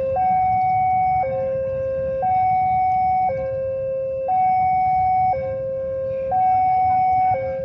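Railway level-crossing warning alarm: an electronic two-tone signal alternating high and low, each tone held about a second, sounding as a train approaches the crossing.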